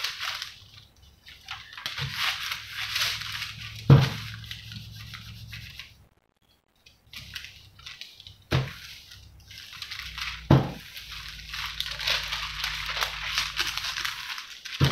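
Sheets of paper rustling and crinkling as they are handled and smoothed flat, with several sharp knocks on the table.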